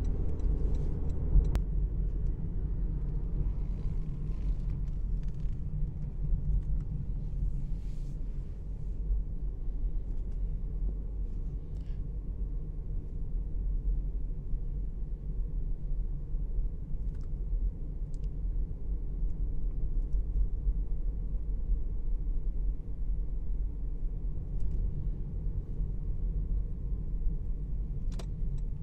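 Car driving on town streets: a steady low rumble of tyre and engine noise, with a single sharp click near the end.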